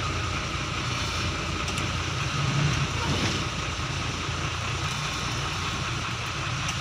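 Steady low engine rumble of queued vehicles, with a constant hiss of wind noise on the microphone.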